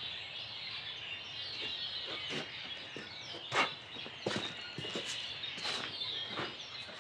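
A person's footsteps, a step about every two-thirds of a second, over birds chirping steadily in the background.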